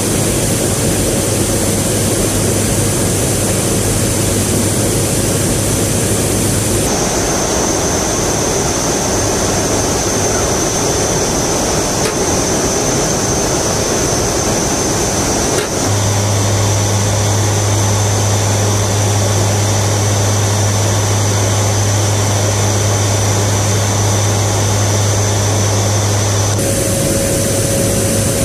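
Propeller aircraft's engines droning steadily in flight, heard inside the cabin, with a strong low hum. The drone changes abruptly three times, about 7, 16 and 26 seconds in.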